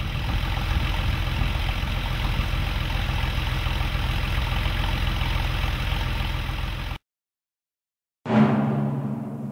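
Porsche 993 Carrera's air-cooled 3.6-litre flat-six idling steadily, then cutting off suddenly about seven seconds in. After a second of silence, string music with violin begins.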